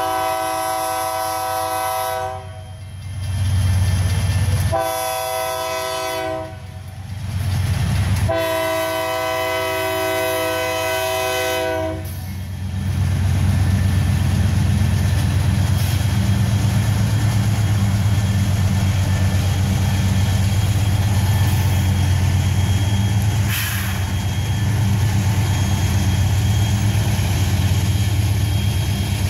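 Union Pacific diesel locomotive's multi-chime air horn sounding three blasts for a grade crossing, the last the longest, ending about twelve seconds in. Then the steady low rumble of the lead diesel locomotives running past, with wheels on the rails.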